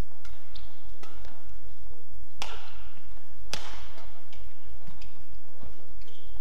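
Badminton rally: rackets striking the shuttlecock in a string of sharp hits, the two loudest about a second apart midway and ringing on in the hall, with lighter hits between. Short high shoe squeaks on the court floor come near the start and again near the end, over a steady low hum.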